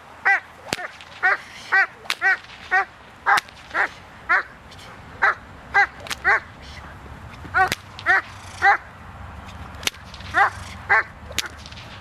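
Doberman Pinscher barking at the protection helper in runs of about two barks a second, with short pauses, stopping near the end. A few sharp cracks fall among the barks.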